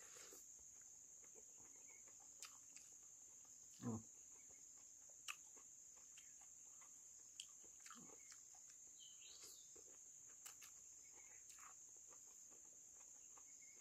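Near silence with a steady high-pitched insect drone, broken by a few faint clicks and a short soft sound about four seconds in.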